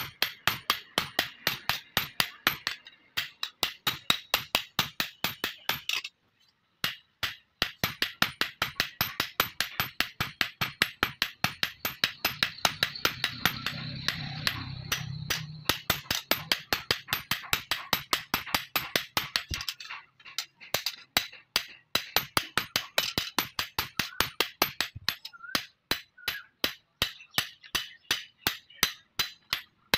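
Hand hammer forging a billhook blade on an iron anvil: metal-on-metal blows in a fast, steady rhythm of about three strikes a second, with a brief pause about six seconds in.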